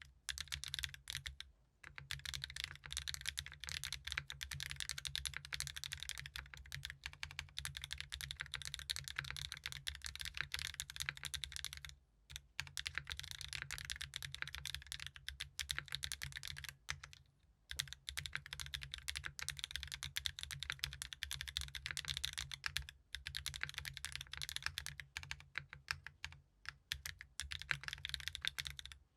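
Continuous typing on a GEON F1-8X mechanical keyboard with Mode Tomorrow tactile switches, an aluminium plate on an O-ring mount, no foam and DMK Vintage ABS double-shot keycaps: a dense run of low-pitched, solid keystrokes broken by a few short pauses.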